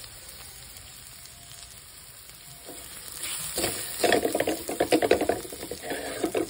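Garlic and onion frying in oil in a metal pan, a faint sizzle at first; about three seconds in, a silicone spatula starts scraping and stirring rapidly against the pan, a loud run of quick strokes for about three seconds.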